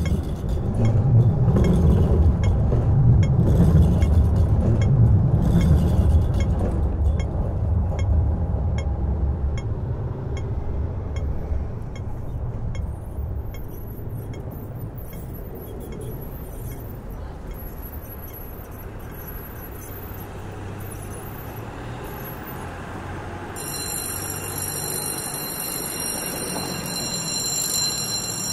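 Low engine rumble, loud at first and fading away over about ten seconds, with faint regular metallic ticks above it, then a steadier quieter hum of the harbour. About five seconds before the end, several high, steady tones start together.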